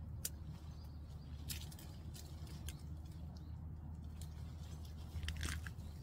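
Scissors snipping pepper-plant shoots, with leaves rustling: a handful of crisp snips spread out, two close together near the end, over a steady low rumble.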